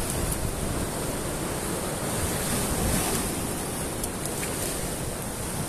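Sea surf washing against a rocky shore, a steady rushing, with wind buffeting the microphone.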